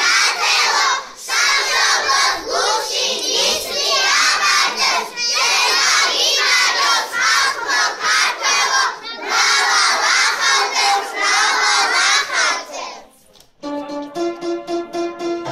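A children's choir singing loudly together in short phrases. About thirteen seconds in the voices stop and instrumental backing music with steady held notes begins.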